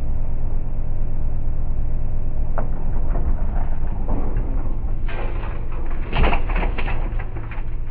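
Kubota KX080 excavator's diesel engine running steadily, with a run of sharp cracks and knocks about five to seven seconds in.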